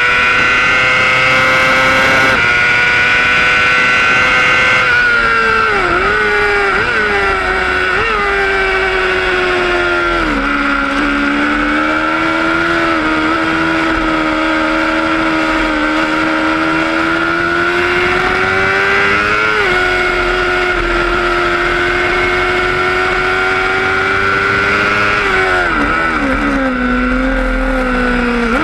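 600cc racing motorcycle engine running hard at high revs. The engine note dips and recovers several times about five to eight seconds in, drops to a lower steady note near ten seconds, and falls again near the end.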